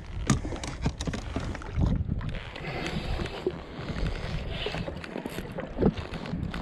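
Water lapping and splashing against a jet ski's hull, with wind buffeting the microphone and a few irregular knocks.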